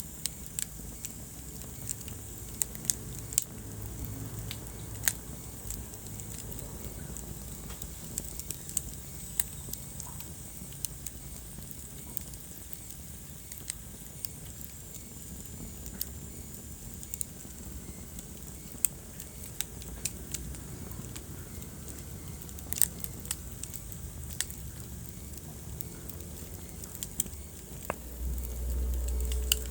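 Wood fire crackling in a fireplace: irregular sharp pops and snaps over a steady low rush of burning, with a brief louder low rumble near the end.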